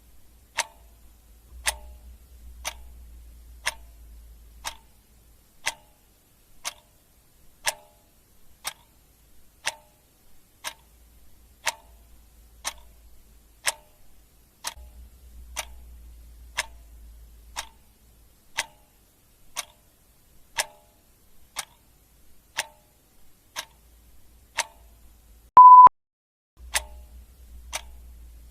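Clock ticking steadily, about one tick a second, with a single short high beep near the end.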